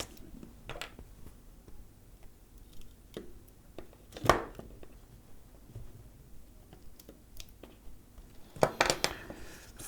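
Scattered light clicks and taps of the power bank's circuit board and battery being handled after soldering, with one louder knock about four seconds in and a quick run of clicks near the end.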